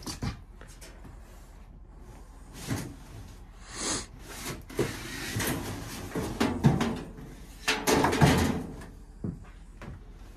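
Large race car body panels being worked loose from a stack, with irregular scraping, rubbing and knocking of sheet panels against each other and the things around them. The loudest clatter comes about two-thirds of the way in.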